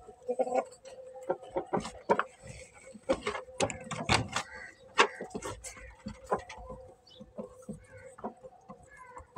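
Aseel chickens making short, sharp clucks and clicks at an irregular pace, over a faint steady hum.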